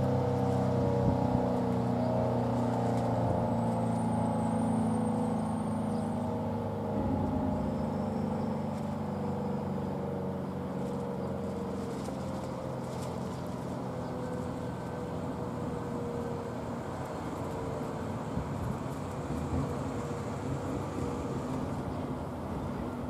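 ACA Howler rotating siren winding down: its howl slowly falls in pitch and fades away over about fifteen seconds as the head keeps turning.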